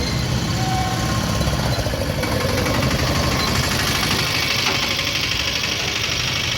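Vehicle engines running steadily with a low rumble.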